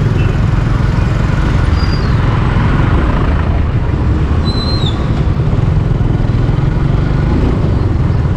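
Motorcycle riding noise: the engine running steadily under heavy wind rumble on the rider's microphone.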